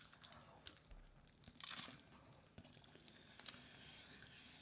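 Faint eating sounds of a seafood boil: a few soft crunches and crackles of shells being broken and peeled, the clearest about two seconds in, with scattered small clicks.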